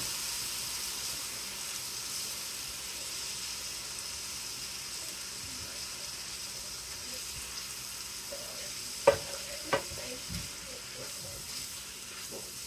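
Fried rice with freshly added soy sauce sizzling steadily in an electric skillet while a spoon stirs and scrapes through it. A little after nine seconds in, the spoon knocks sharply against the pan twice.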